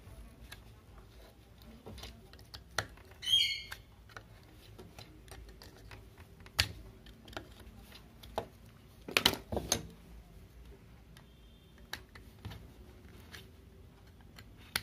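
Small screwdriver and then needle-nose pliers clicking and scraping against a plastic phone-charger case and its circuit board as the board is worked loose, with scattered ticks and a louder cluster of clicks about nine seconds in. A short high squeak sounds about three seconds in.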